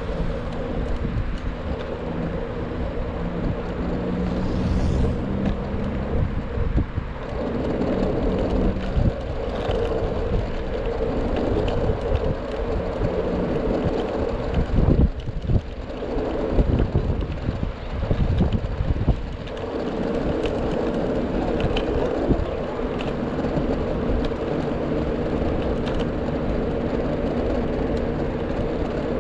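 Ride noise of a Pars Yimi S600 three-wheeled electric scooter: a steady low hum and rumble of the wheels on the street, with a few sharp jolts and wind on the microphone.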